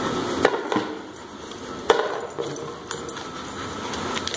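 A dog nosing and mouthing a plastic frisbee on a concrete floor: a handful of scattered sharp clacks and taps.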